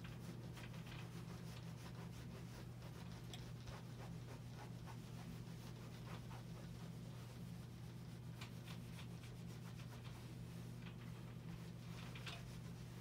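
Faint rubbing and scuffing of an iron being slid over fabric on an ironing board, over a steady low hum.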